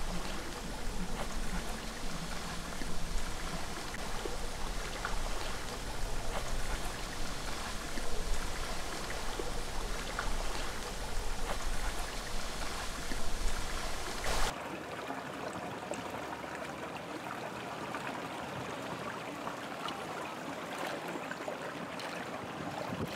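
Pool water splashing and lapping over a low rumble. About two-thirds through it cuts suddenly to the steady hiss of a hot tub's jets bubbling.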